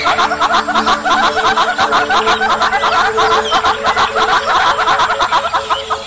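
Hornbills giving a continuous, rapid, laughing cackle of short notes, several a second, with a faint steady tone underneath.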